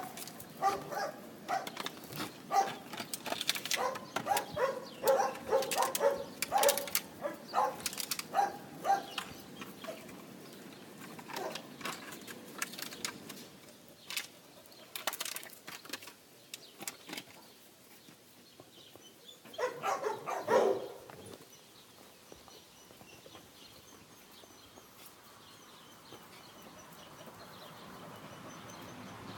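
Dogs barking in quick repeated bursts for the first ten seconds or so, then again briefly about twenty seconds in.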